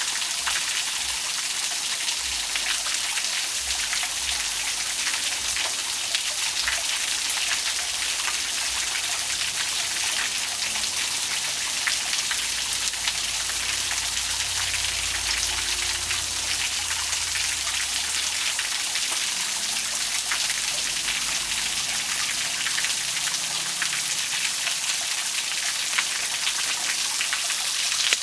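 Small waterfall splashing steadily: an even, bright hiss of falling water, full of fine patter-like splashes.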